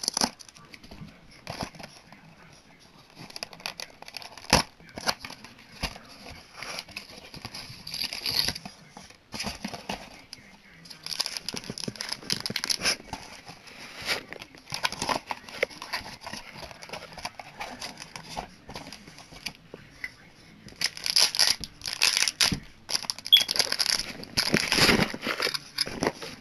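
Packaging being handled: a small cardboard box opened and a can badge taken out, with crinkling, rustling and scattered clicks and taps, busier and louder near the end.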